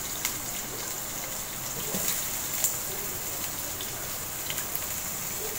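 Whole spices, cinnamon stick and star anise, sizzling steadily in hot cooking oil in the inner pot of an electric pressure cooker on its stir-fry setting, with a few faint clicks.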